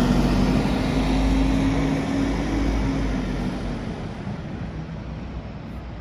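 Double-decker bus engine running as the bus drives away, with a steady low hum that fades over the last few seconds.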